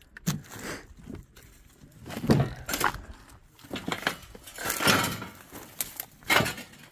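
Irregular scuffs and knocks among scrap steel plates and debris, about half a dozen, spread a second or two apart.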